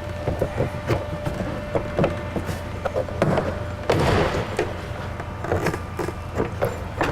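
Plastic door-panel retaining clips snapping loose from the door metal of a 2009 Chevy Suburban as a plastic trim tool pries the front door panel off: a run of sharp clicks and snaps, with scraping of the plastic panel about three and four seconds in.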